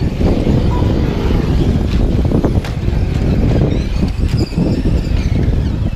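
Radio-controlled racing trucks running on a dirt oval, with a faint high motor whine that rises and falls about four seconds in, over a steady low rumble.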